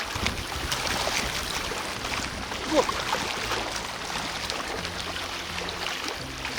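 Strong wind and choppy water at the shore, a steady rushing noise with a low rumble and faint ticks through it.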